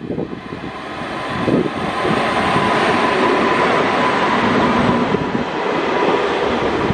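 An Indian Railways WAG-9 electric locomotive approaches and passes at speed, followed by ICF passenger coaches running close by. The noise builds over the first two seconds into a loud, steady rush and rumble of wheels on the rails, with a steady whine running through it.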